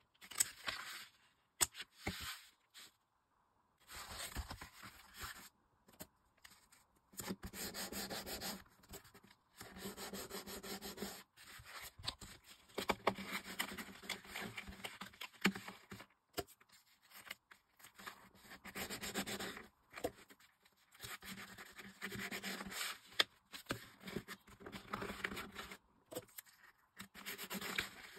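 Scissors snipping a cardboard mailing envelope, then the card being folded and pressed along its scored lines: bursts of rubbing and scraping with short pauses between.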